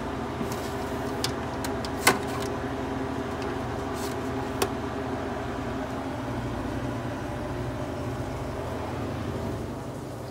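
Steady hum of a Harvest Right home freeze dryer running, with a few sharp clicks, the loudest about two seconds in. The hum falls off a little near the end.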